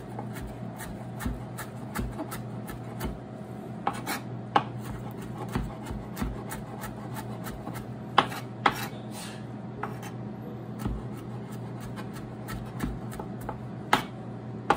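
Kitchen knife chopping dill finely on a cutting board: irregular taps of the blade against the board, roughly one or two a second, with a few louder strikes.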